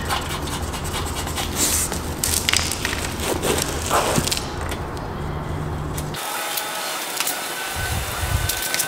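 Plastic (Teflon) strip being fitted by hand onto a steel frame: rubbing and scraping with a few sharp clicks, over a steady low hum that cuts off about six seconds in.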